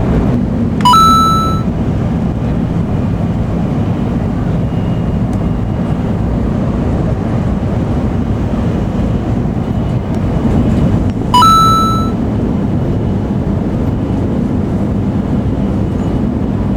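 Steady low rumble and hiss of an N700-series Shinkansen running at speed, heard from inside the passenger cabin. Twice, about ten seconds apart, a short electronic beep sounds over it; these beeps are the loudest sounds.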